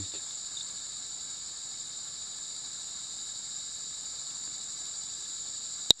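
Steady high-pitched buzzing of insects, with one sharp click near the end.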